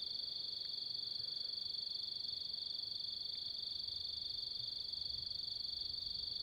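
Crickets trilling at night: a steady, high, fast-pulsing drone that goes on without a break.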